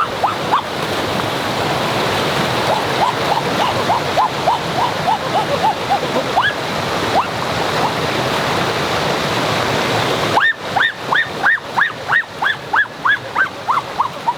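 Steady rush of a waterfall, with a run of short rising chirps repeated about three to four times a second. About ten seconds in, the water noise drops away sharply and the chirps become louder and higher.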